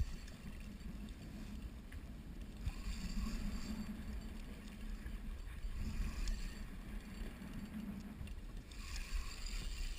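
Low rumble of a fishing boat on the water, with a faint hum that swells and fades every couple of seconds.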